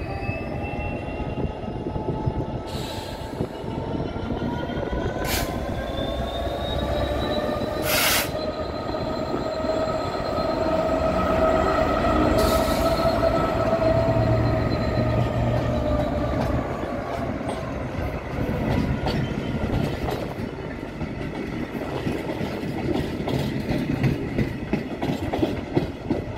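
Freight train hauled by a Class 66 diesel locomotive running through slowly, its wagon wheels squealing in several steady high tones that swell to their loudest about halfway. A few sharp clicks come in the first half, then wheels clatter over the track as the squeal fades.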